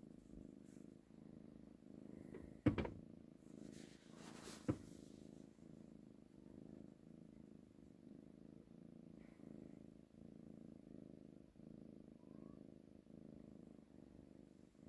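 Tabby cat purring steadily as its head is stroked, the purr pulsing evenly with its breathing. Two sharp clicks break in, a little under three seconds in and again near five seconds.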